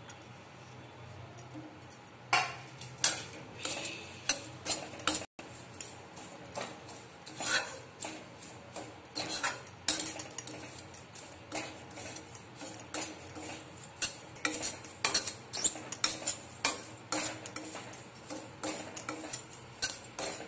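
Metal spatula scraping and clinking against a steel kadhai while ground makhana (fox nuts) is stirred and roasted. The strokes start about two seconds in and come irregularly, several a second.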